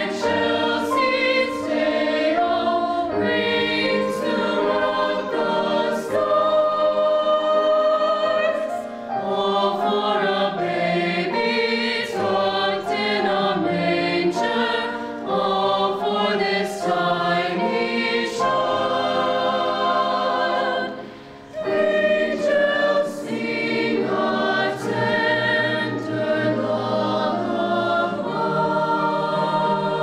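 Mixed choir of teenage voices singing a sacred Christmas song in close harmony, with one brief break about two-thirds of the way through.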